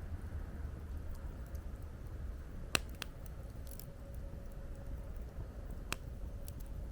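Wood fire crackling, with two sharp pops of burning wood about three seconds apart and fainter ticks between them, over a low rumble of wind.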